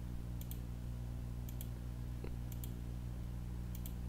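Computer mouse button clicked four times, about once a second, each click a quick double tick of press and release, placing control points of a spline. A steady low hum runs underneath.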